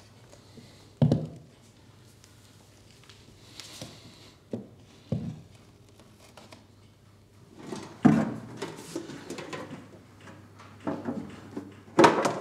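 Wooden handling sounds: a box lid and a drawer being opened and moved, making a series of separate knocks and scrapes, with the loudest knock near the end.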